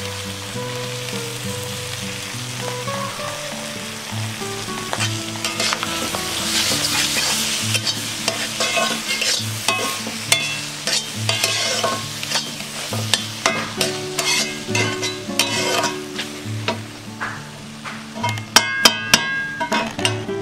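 Metal spatula stirring and scraping squid masala fry around an iron kadai while the oil sizzles. The scraping and clinking grow busier a few seconds in, with a quick run of sharp metal clinks near the end.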